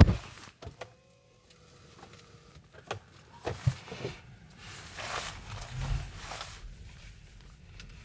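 A Tesla Model 3's car door shuts with a loud thump. The electric car then pulls away with almost no motor sound, leaving its tyres rolling and crunching over the dirt yard for a few seconds.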